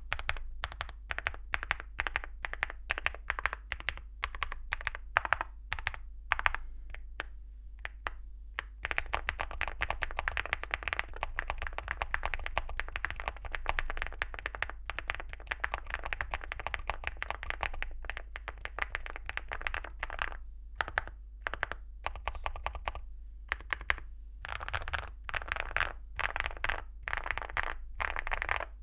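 Typing on a Leobog Hi75 mechanical keyboard with Ajazz Gift linear switches and ceramic Cherry-profile keycaps. It starts with separate keystrokes, turns to fast continuous typing about nine seconds in, then goes back to sparser strokes and short bursts near the end.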